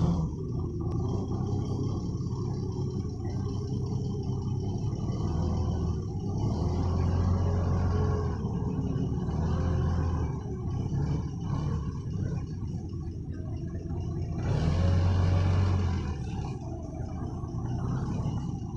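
Forklift engine running under load while carrying a stack of sawn timber planks, revving up several times, loudest about fifteen seconds in.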